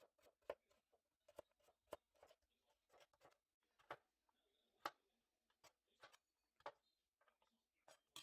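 Faint, irregular clicks and light knocks, about one or two a second, like small objects being handled.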